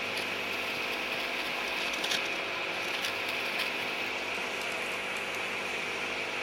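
Steady mechanical hum and hiss with a few faint ticks about two and three seconds in.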